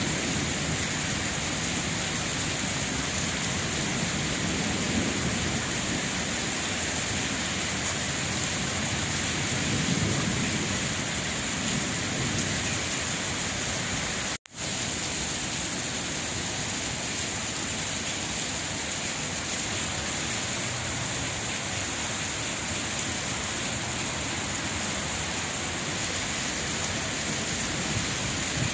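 Steady rain falling, a dense even hiss, with a few soft low rumbles coming and going. The sound cuts out for an instant about halfway through.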